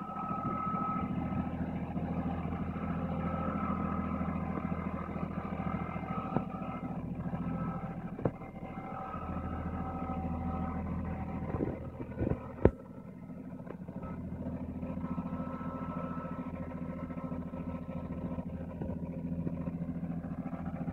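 Compact tractor's engine running steadily at low revs. A few sharp knocks about twelve seconds in, the last one the loudest.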